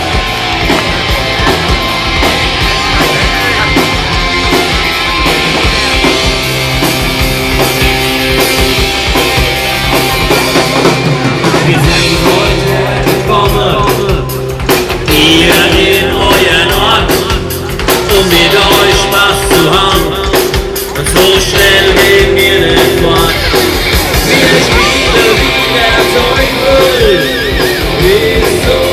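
Live rock band playing loud with drums, guitar and some singing, as heard from the crowd.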